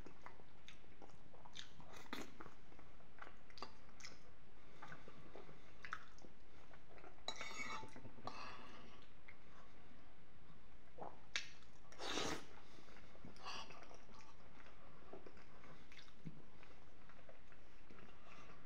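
Close-up chewing and mouth sounds of a man eating a creamy dish of penne with béchamel and peas, as scattered soft wet clicks. A few louder, longer mouth noises come through, the loudest about twelve seconds in.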